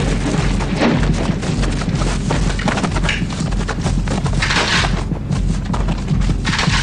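War-film battle sound: booms and gunfire over music, with a low pulsing rumble underneath and a rapid scatter of sharp cracks.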